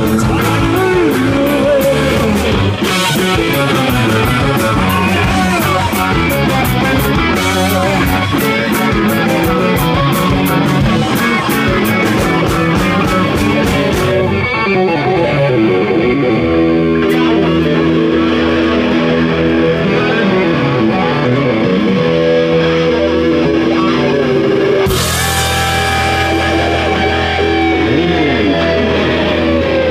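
Live rock band playing an instrumental passage: several electric guitars over bass and drums. About halfway through the cymbals drop out, leaving long held guitar notes; near the end a cymbal crash comes in and a high held note slides down in pitch.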